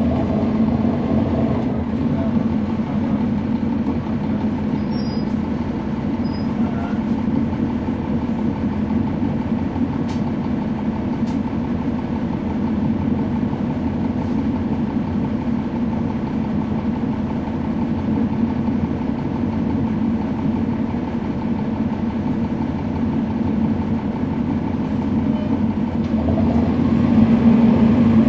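Cummins ISL9 straight-six diesel of a NABI 40-SFW transit bus, heard from on board, running steadily with a low drone. It grows louder near the end as the bus picks up power.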